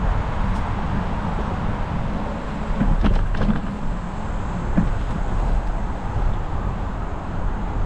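Specialized Epic mountain bike rolling along a dirt trail: a steady rush of wind and tyre noise on the bike-mounted camera's microphone, with a few short rattles about three seconds in and again near five seconds.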